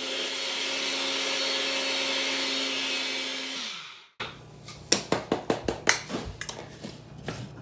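Small electric grinder grinding flaxseed: a steady motor whine that runs about three and a half seconds and then winds down. After that comes a run of sharp knocks and clicks as the grinder cup is handled.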